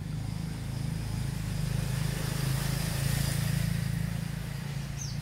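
A motor vehicle's engine going by: a steady low engine note that grows louder around the middle and fades toward the end.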